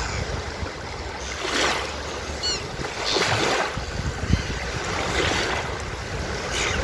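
Surf washing onto a beach in repeated swells, with low wind rumble, and a brief run of four or five short high bird calls about two and a half seconds in.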